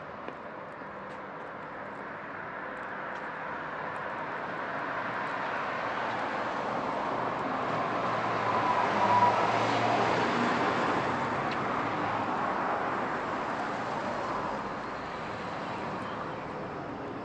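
A motor vehicle passing on a street: a steady traffic hum that swells slowly to its loudest about halfway through, then fades.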